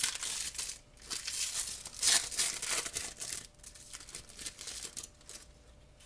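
A trading card pack wrapper being torn open and crinkled: several bursts of rustling and tearing over the first three seconds or so, the loudest about two seconds in, then dying down to a few soft rustles.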